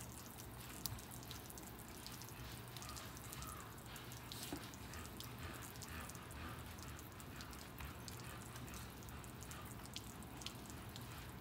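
Faint wet dripping and squelching as shampoo is worked by hand into a short-coated dog's wet, soapy coat. It is a scatter of small wet ticks over a low steady hum.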